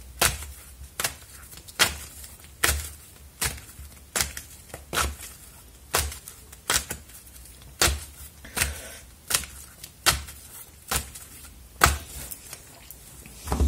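A deck of oracle cards being shuffled by hand, passing from one hand to the other, each pass giving a short sharp slap of cards at a steady pace of a little more than one a second.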